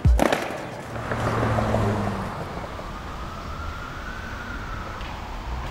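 A skateboard snaps and clatters once right at the start, then steady city traffic noise with a siren slowly rising and falling.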